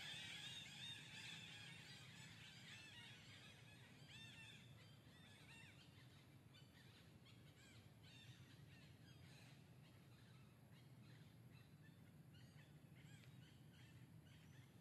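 Faint, repeated high-pitched animal chirps. Many overlap in the first few seconds, then they come sparser, over a low steady hum.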